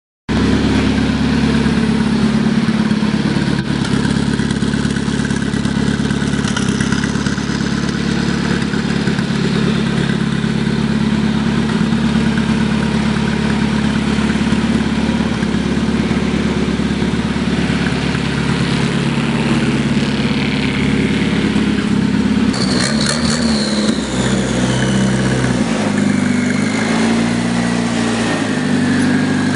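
Turbocharged tractor diesel engine idling steadily. From about 22 seconds in its speed shifts up and down, and a high whistle glides down in pitch.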